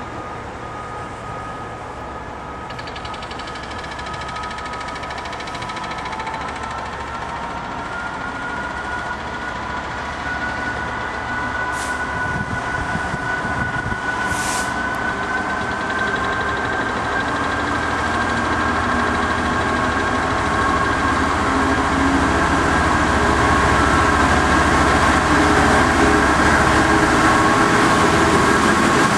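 Class 66 diesel-electric freight locomotive, with its EMD two-stroke V12, approaching and passing close by. A steady whine sits over the engine's rumble, and both grow louder as it nears, with two short hisses near the middle.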